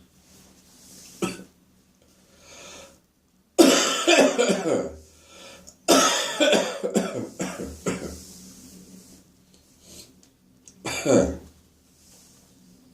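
A person coughing wet, phlegmy coughs from residual morning phlegm. They come in several bouts, the loudest starting about three and a half seconds in and another near the end, with throat clearing and breaths between.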